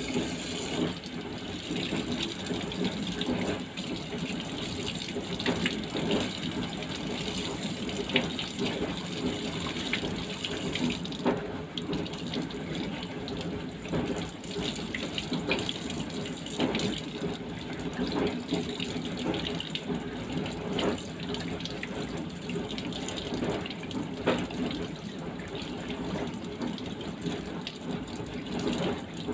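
Kitchen tap running into a stainless steel sink, the stream splashing over a whole fish as it is rinsed and rubbed by hand to wash out the blood. Irregular small splashes and knocks come as the fish is turned.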